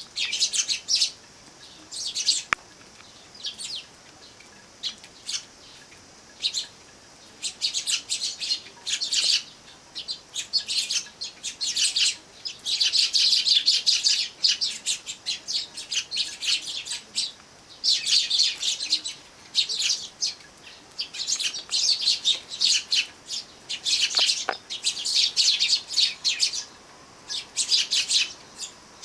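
Eurasian tree sparrows chirping: many short, high chirps in bursts that come and go, with brief lulls between.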